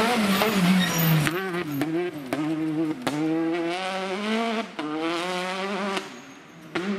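Citroën DS3 rally car's engine revving hard as it passes on a gravel stage, the pitch climbing and dropping again and again with quick gear changes and throttle lifts. The engine note dies away briefly near the end.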